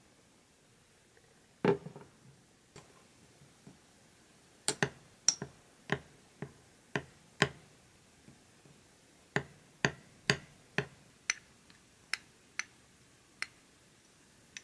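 Metal spoon clinking against the sides of a small ceramic cup while stirring melted chocolate: a string of short sharp clicks, about two a second, with a pause of a couple of seconds midway.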